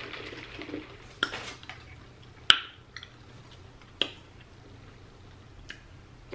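A plastic drink cup with a straw being handled and set down on the table: a few short, sharp knocks and clicks, the loudest about two and a half seconds in.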